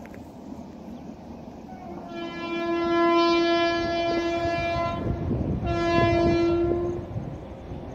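Horn of an approaching WAP7 electric locomotive sounding two blasts on one steady note: a long one of about three seconds, then a shorter one of about a second and a half.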